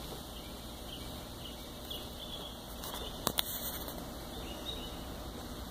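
Quiet outdoor waterside ambience: a steady soft hiss, broken by two short clicks close together a little past three seconds in.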